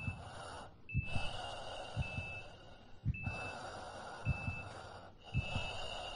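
Heartbeat-like low double thumps recurring about once a second, under a breath-like hiss that swells and cuts off about every two seconds. A thin high tone keeps breaking off and starting again.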